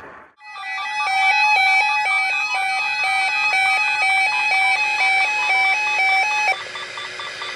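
Broadcast emergency alert attention tone: a rapid repeating pattern of two alternating electronic beeps, about three a second, lasting about six seconds and then cutting off. It signals the start of an alert, here a severe thunderstorm watch.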